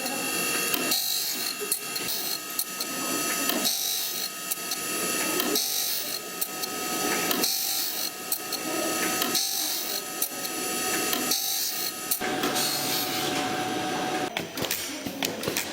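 A saw-making machine working in a repeating cycle of about two seconds, over a steady high whine; the cycle turns to a rougher, noisier stretch near the end.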